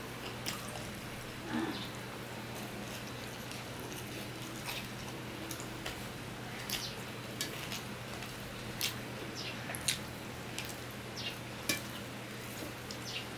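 Close-up eating sounds of rice eaten by hand from a steel plate: soft sticky clicks and smacks of fingers working the rice and of chewing, coming about once a second, over a steady low hum.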